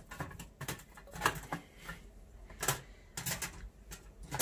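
Irregular light metal clicks and taps from handling a Lixada folding steel firebox stove as its top grill is set in place.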